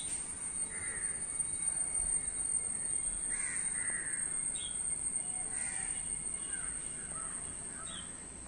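Crows cawing several times at irregular intervals, with a steady high thin whine underneath.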